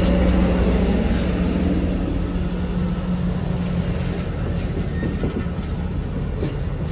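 Diesel locomotives (a GP40-2LW and a GP40WH-2) and track geometry cars rolling past close by. The engines give a steady low hum over the rumble of wheels on rail, with scattered sharp wheel clicks. The hum fades after about four seconds and the whole sound slowly eases off as the train moves on.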